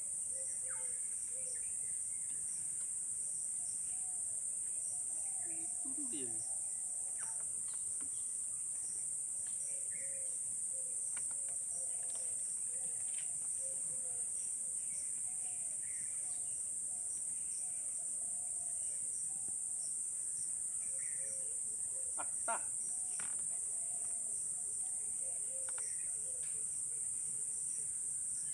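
Steady high-pitched chorus of forest insects, with scattered short calls in the background and one sharp click late on.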